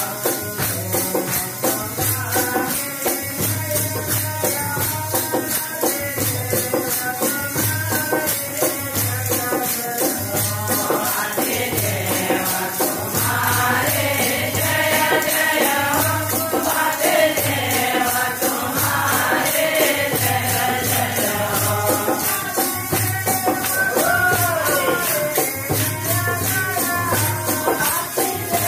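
Devotional bhajan kirtan: a group of men singing in chorus over fast, steady jingling metal percussion and a drum beating a repeating rhythm. The voices come in stronger from about a third of the way through.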